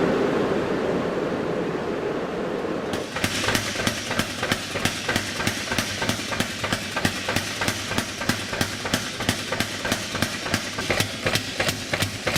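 A steady rush of forge burner noise. About three seconds in, a power hammer starts striking a hot damascus billet in a fast, even rhythm, about five blows a second, over a low motor hum.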